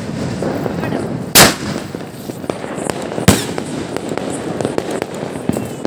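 Aerial fireworks going off: a loud bang about a second and a half in and another about two seconds later, over continual crackling and popping.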